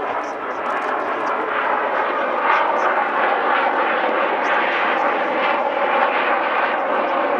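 Jet fighter engine noise as the aircraft climbs during a display: a steady rushing sound that grows a little louder over the first second or two.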